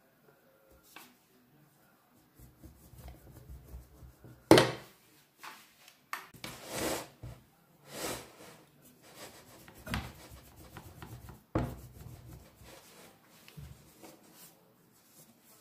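A rolling pin rolled and pressed across the rim of a frying pan to cut away overhanging dough, with rubbing and scraping and several sharp knocks, the loudest about four and a half seconds in. Near the end, hands tear and pinch off the excess dough edge.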